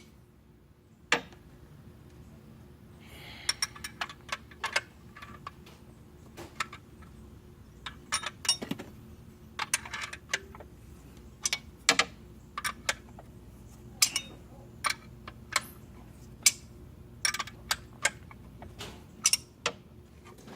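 Hand tools on metal: irregular sharp clicks and taps, often several in quick succession, as a wrench works the bolts holding a car alternator in place. A faint steady hum runs underneath.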